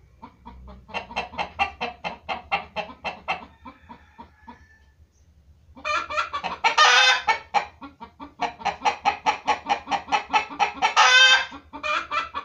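Chickens clucking in rapid runs of about five or six clucks a second. The clucking breaks off for a moment about four seconds in, then comes back louder, with a drawn-out squawk at about seven seconds and again near eleven seconds.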